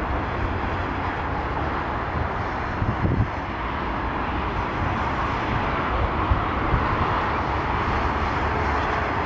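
Steady rushing noise of jet aircraft engines running on an airport apron, with low wind rumble on the microphone.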